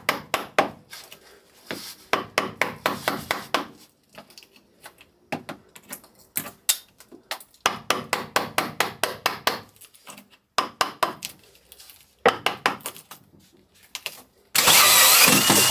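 Hammer striking a chisel into thick hardwood in quick runs of blows with short pauses between them, cutting away about a centimetre of wood so the cup saw's pilot bit can go deeper. Near the end, a power drill with a cup saw starts cutting with a loud, steady sound.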